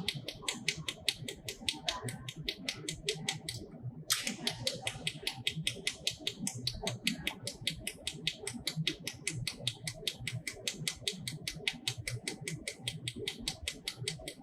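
Pulsed jewelry laser welder firing a rapid, even train of sharp snapping clicks, one per laser pulse, as metal is spot-welded. The train breaks briefly about three and a half seconds in, then resumes.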